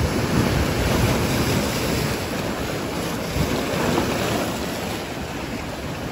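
Surf breaking and washing over dark volcanic rocks at the shoreline, a continuous rush of white water. It swells at the start and again about four seconds in, easing near the end.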